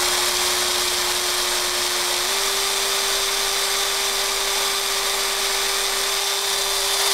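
Cordless battery hand drill running steadily with a #31 bit cutting slowly into a gas block through a pinning jig; its motor whine steps up a little in pitch a couple of seconds in. The drill stops suddenly at the end.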